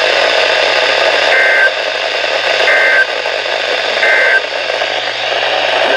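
Steady radio static hiss with three short two-tone data bursts, about a second and a half apart: Emergency Alert System SAME digital tones.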